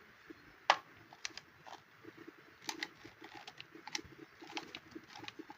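Light clicks and taps from handling a Skil electric drill while it is switched off: a sharper click a little under a second in, then a scatter of smaller clicks, with no motor running.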